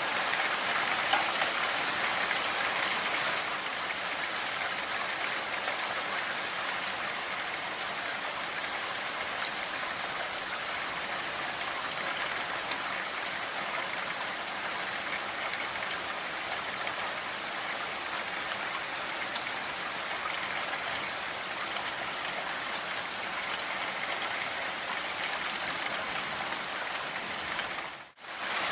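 Steady heavy rain falling, a dense, even hiss of drops. Near the end it drops out for a split second and comes straight back.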